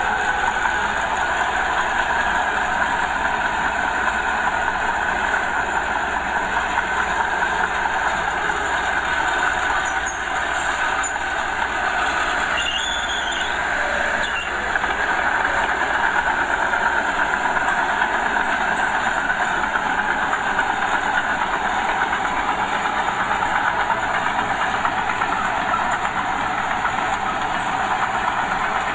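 Small Komatsu bulldozer working, its diesel engine running steadily with a continuous clatter; the sound dips briefly twice near the middle.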